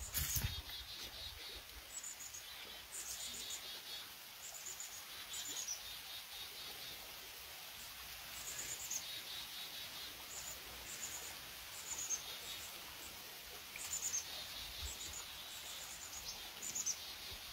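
Small birds chirping in short high trills that come in clusters every few seconds, over a faint steady outdoor hiss. A brief low rumble right at the start.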